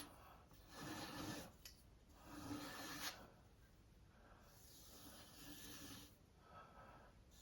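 Sharpening stone on a Tsprof Kadet guided knife sharpener, pushed in faint, slow rasping strokes along a chef's knife edge, about four strokes.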